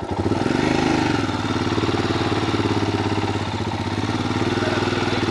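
Adventure motorcycle engine pulling the bike up a rocky dirt track: the revs rise and fall in the first second, then it runs steadily.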